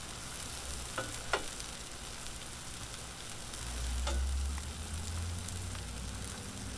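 New York strip steaks and vegetables searing on a Blackstone 22-inch steel griddle: a steady frying sizzle. A few light clicks come about a second in and again near four seconds, with a brief low rumble around four seconds.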